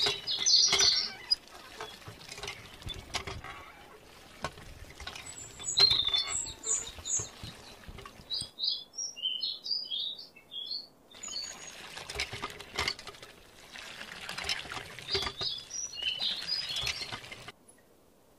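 Water from a miniature hand pump pattering and splashing into a small pond, with irregular clicks from the pump, and short high bird chirps at intervals. Everything cuts off abruptly about a second before the end.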